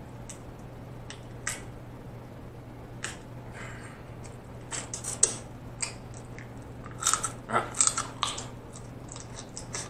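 Close-miked eating sounds: sparse clicks as meat is picked from a king crab leg shell with a fork, then a quick run of wet smacks and clicks as the crab meat is eaten, about seven seconds in.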